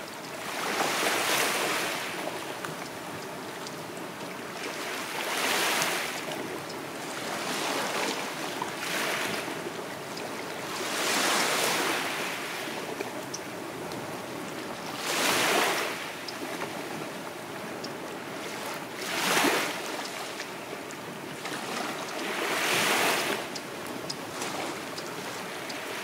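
Small sea waves breaking on the shore, about one every three to four seconds. Each one swells, washes in and fades back into a steady hiss of surf.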